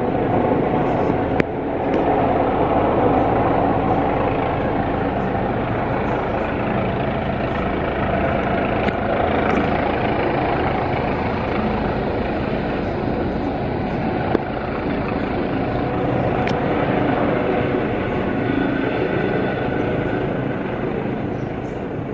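Medical helicopter coming in low to land, its rotor and turbine making a loud, steady sound.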